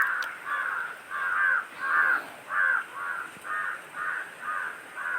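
A crow cawing over and over, short hoarse calls about two a second in an even rhythm.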